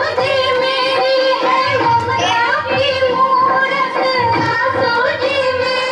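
Music with a high singing voice carrying a melody over dense instrumental backing.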